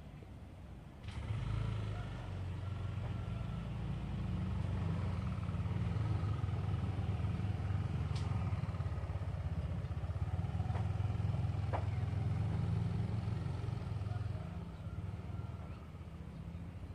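A motor vehicle's engine running: a steady low rumble that comes in about a second in and eases off near the end.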